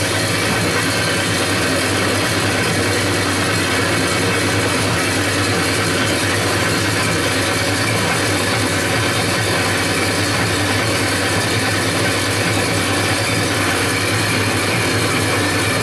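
Vintage propeller aircraft's piston engine running steadily at an even pitch, with a dense hiss over a low drone.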